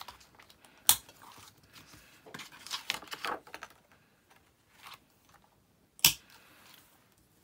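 Metal rings of a six-ring planner binder snapping open about a second in and shut again about five seconds later, with plastic pages rustling in between as clear sheets are handled on the rings.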